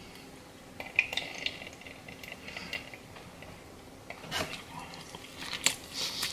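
Scattered light clicks and knocks from handling a bottle of Frank's RedHot Wings hot sauce while sauce is poured onto a chicken tender, the sharpest about a second in. A bite into the sauced tender follows near the end.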